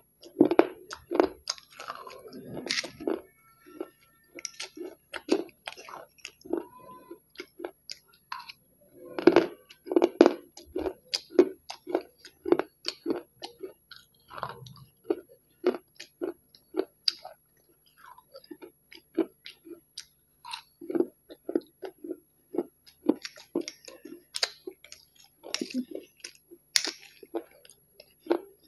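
Close-miked chewing and crunching of hard grey chunks: many crisp crunches in quick, irregular succession, with heavier bites near the start and about ten seconds in.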